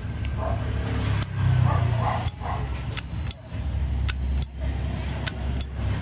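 A 1993 Zippo lighter being handled: a string of sharp metallic clicks and clinks, some with a brief bright ring, as the hinged lid and the chrome insert are worked. A steady low rumble runs underneath, and a dog yips faintly a few times.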